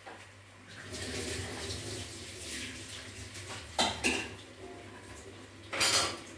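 Kitchen sounds: a steady hiss like running water starts about a second in, with sharp clanks of kitchen utensils twice about four seconds in and once more, longer, near the end.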